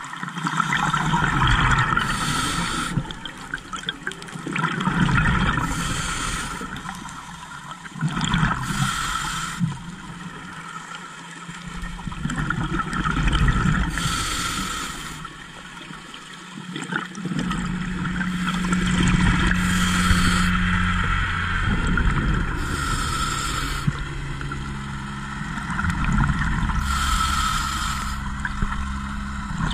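Scuba breathing heard from underwater: bursts of exhaled regulator bubbles about every three to four seconds over a steady rush of water. A low steady hum joins about halfway through.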